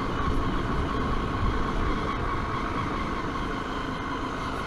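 Zontes T310 motorcycle's single-cylinder engine running steadily, with a low rumble of road and wind noise.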